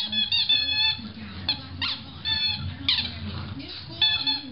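A puppy chewing a squeaky ball toy, making repeated high squeaks: a close run in the first second, then one about every half second.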